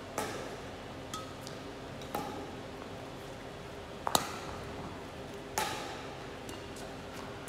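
Badminton racket striking shuttlecocks. There are four sharp smacks about two seconds apart and a fainter one between the first two, each ringing briefly in a large hall.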